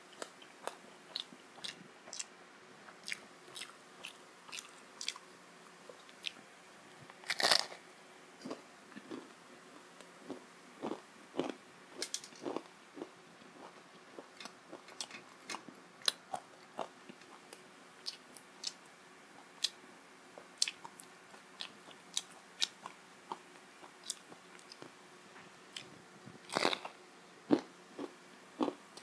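A person biting into and chewing a fried syaphaley (meat-filled fried bread), heard up close through a clip-on microphone: a run of short crunchy and wet chewing clicks, with two louder crunching bites about a quarter of the way in and near the end.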